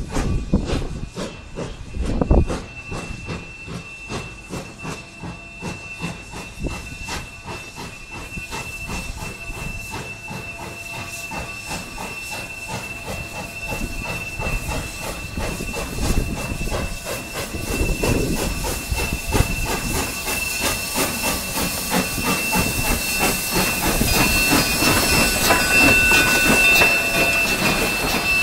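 Cumbres & Toltec K-36 No. 488, a Baldwin-built three-foot narrow-gauge 2-8-2 Mikado steam locomotive, drifting in slowly with steady exhaust chuffs and steam hiss. It grows louder as it comes alongside and passes close by near the end. A thin, steady high whistling tone sets in a few seconds in and runs on over the rest of the sound.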